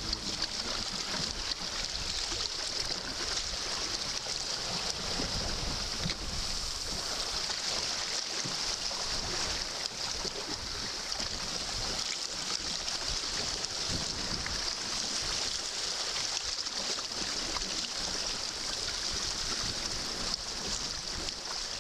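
Water rushing and splashing steadily along the hull of a small sailboat under way in choppy water, with gusty wind rumble on the microphone.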